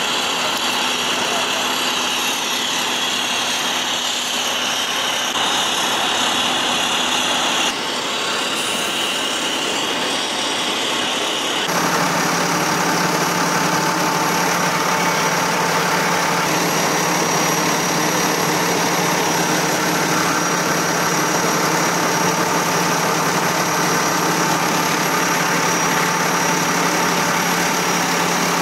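A vehicle engine idling steadily under general street noise. The sound changes abruptly about eight and twelve seconds in, after which a steady low engine hum is louder.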